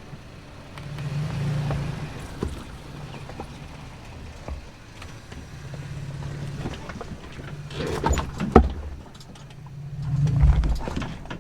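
Toyota Tacoma pickup driving off-road, its engine swelling and easing as it works over rough ground. A few sharp knocks come about eight seconds in, the loudest a single hard clunk, as from the truck jolting over bumps.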